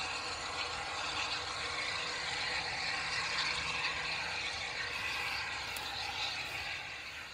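GWR steam railmotor No. 93 working along the line in the distance: a steady running sound that grows fainter near the end.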